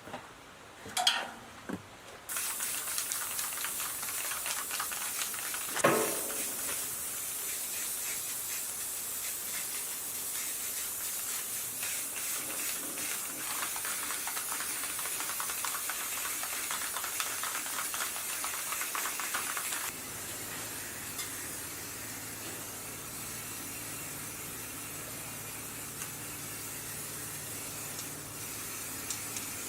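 A steady hiss, like air or a spray, starts about two seconds in and runs on, with a low steady hum joining it about two-thirds through. A short sharp sound about six seconds in is the loudest moment.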